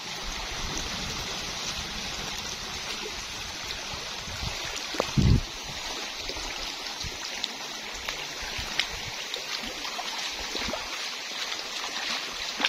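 Shallow stream running and rippling over stones, with water splashing around legs wading through it. A short dull thump about five seconds in.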